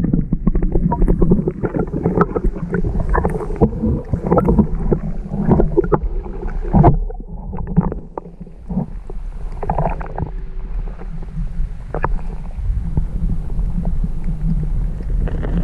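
Muffled underwater sound from an action camera held below the sea surface: a low rumble of moving water with many small clicks and knocks against the housing.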